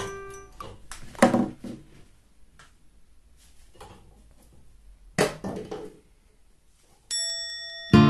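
Two short clusters of sharp knocking and clattering, about a second in and about five seconds in, from a carrion crow's beak working a treat stick against its wooden perch and shelf, with faint clicks between. Edited-in music fades out at the start, and a bright chime-like music sting rings near the end.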